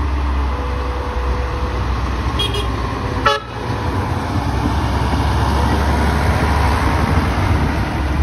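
Small yellow diesel locomotive running past with flat wagons: a steady engine drone over a low rumble, with one short horn toot about three seconds in.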